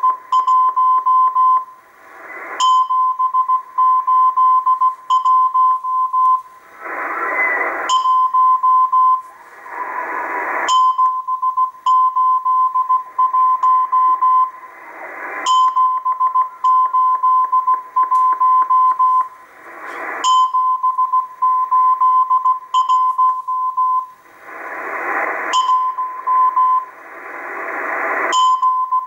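Morse code from a number station received on a Tecsun PL880 shortwave radio at 5882 kHz: a steady tone near 1 kHz keyed in dots and dashes, repeating the number group 781. Every few seconds, bursts of static noise wash over the signal.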